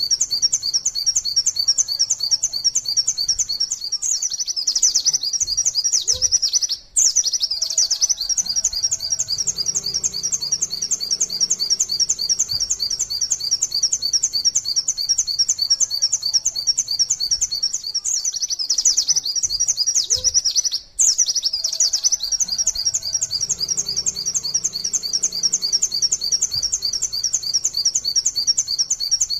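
White-eye (pleci) singing its 'nembak' song: a long, unbroken run of rapid, high, repeated 'wit wit tulit tulit' notes, the style kept as a master recording for training other white-eyes. The song drops out for an instant twice.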